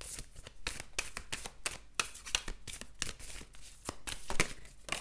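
A tarot deck being shuffled by hand to draw a clarifying card: a quick, irregular run of soft card snaps and flicks.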